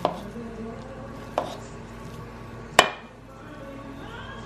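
A scoop knocking and scraping against a glass mixing bowl while falafel mix is scooped out: three sharp clinks about a second and a half apart, the last the loudest.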